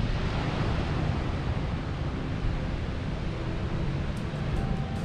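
Steady ocean surf breaking on a sandy beach, with wind rumbling on the microphone.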